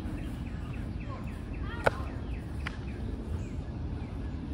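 Small birds chirping over a steady low rumble of outdoor background noise, with one sharp slap about two seconds in and a fainter click just after.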